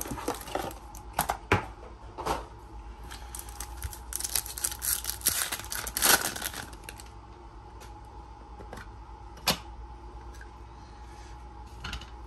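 Handling of a trading-card box and its cards: a run of clicks and taps, a stretch of crinkly rustling about four seconds in, and one sharp click near the three-quarter mark.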